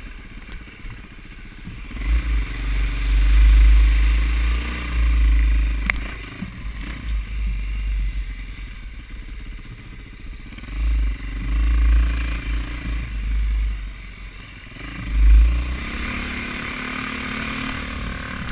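Dirt bike engine running while being ridden, revving up and down several times with the throttle, with heavy wind buffeting the helmet-camera microphone.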